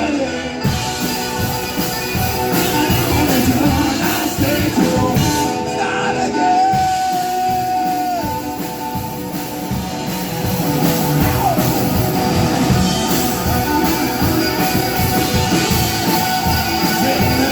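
Rock band playing live, with drums, guitar and singing; a long held note about six seconds in.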